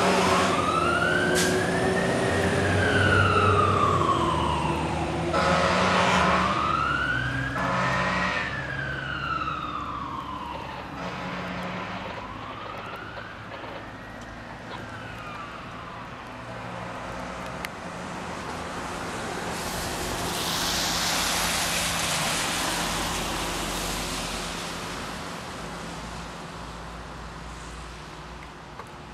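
Siren on a 2003 Sutphen ladder truck with a Caterpillar C12 diesel, wailing slowly up and down about every six seconds over the engine as the truck pulls away, growing fainter after three cycles. Later a rushing hiss swells and fades.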